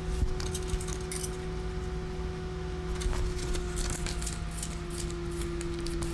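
Scattered small clicks and rustles of computer cables and plastic connectors being handled, over a steady electrical hum.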